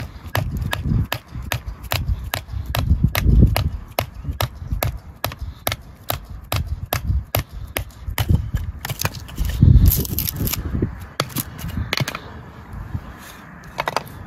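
Batoning kindling: a piece of firewood repeatedly striking the spine of a knife driven into a small log, a fast run of sharp wooden knocks about three a second that thins out near the end.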